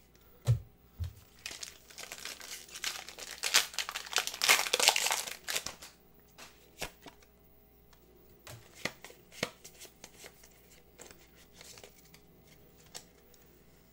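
Foil Pokémon booster pack wrapper being crinkled and torn open, loudest between about three and five seconds in, after a couple of soft thumps at the start. Then scattered light clicks and taps of the cards being handled.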